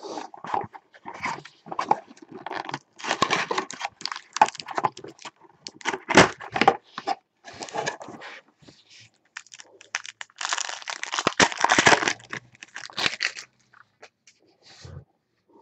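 A small trading-card box being torn open by hand and the card pack inside unwrapped, in a run of irregular crinkling and ripping. The busiest stretches come about three seconds in and again about ten to thirteen seconds in.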